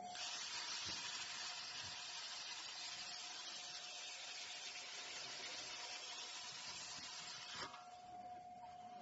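CNC plasma cutting torch running a cut: a steady, loud hiss of the plasma arc and gas jet that stops abruptly near the end, after which a steady machine whine can be heard.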